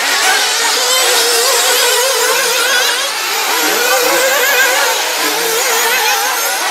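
Several small nitro engines of 1/8-scale RC off-road buggies racing at once, their high-pitched whine rising and falling as they throttle up and down.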